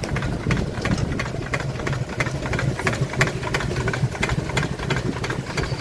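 Merryweather self-contained steam fire-pump engine running, with a steady low hum under regular knocking beats at about three a second.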